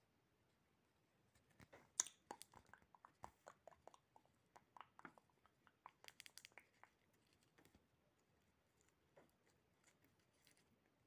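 Faint crinkling and crackling of a tape-covered paper cutout being handled: a quick run of small clicks and crackles for several seconds, then a few scattered ones.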